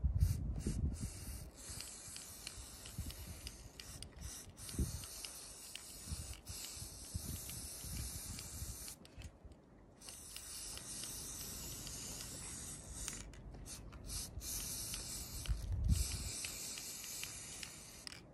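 Aerosol spray paint can hissing in long sprays, broken by short pauses, with a longer pause about nine seconds in. A few low thumps sound near the start and again about sixteen seconds in.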